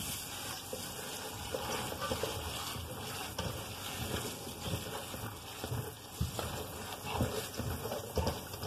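Kitchen tap running onto precooked hominy in a stainless steel colander while hands rub and turn the wet kernels: a steady splashing hiss with scattered small clicks and rustles.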